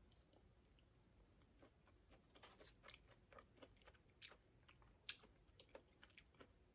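Faint chewing of a chocolate-cherry gaeseong juak, a chewy fried glutinous-rice sweet, heard as scattered small wet mouth clicks, more frequent from about two seconds in.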